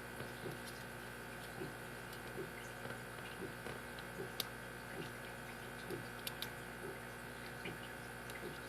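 Faint, scattered clicks and taps of a hook pick and tension wrench working the pins of a brass pin-tumbler padlock held in a false set, with a few sharper clicks, over a steady low hum.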